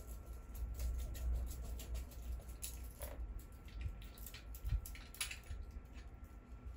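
Scattered small clicks and scrapes of a wristwatch being handled, over a low handling rumble.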